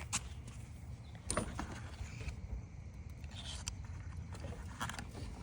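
A few light clicks and knocks of parts being handled, the loudest about a second in, over a steady low rumble.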